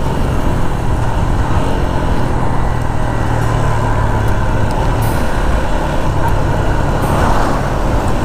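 Motorcycle engine running steadily at riding speed, mixed with wind noise on a lavalier mic worn by the rider.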